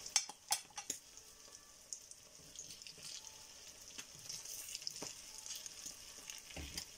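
Ground pork sizzling steadily in a frying pan, with a few sharp clinks in the first second as a metal spoon knocks against the pan, then a wooden spatula stirring through the meat.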